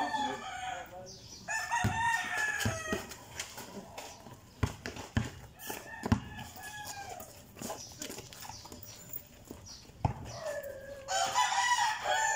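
A rooster crowing, once about two seconds in and again near the end, over a basketball bouncing on a concrete court, the hardest bounce about six seconds in.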